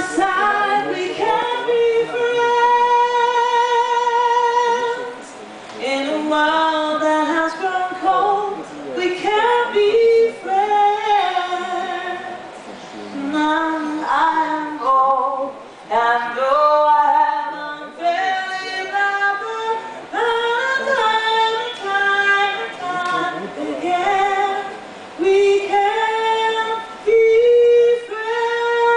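A woman singing melodic phrases, with long notes held in vibrato, the first about two seconds in.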